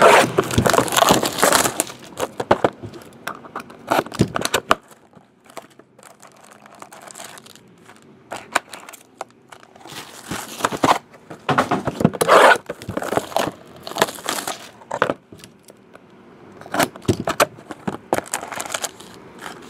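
Trading card box and its packaging being handled and opened: irregular bursts of crinkling and tearing, with a quieter pause about a third of the way through.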